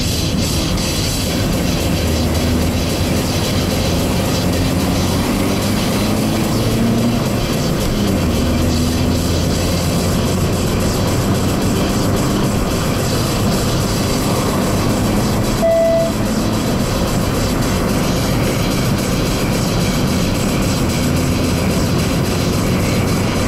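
In-cabin road and engine noise from a 2006 Opel Astra Coupe Bertone Edition with a 2-litre engine driving a winding road, the engine note gliding up and down as it goes through the bends. A short single tone sounds once about two-thirds of the way through.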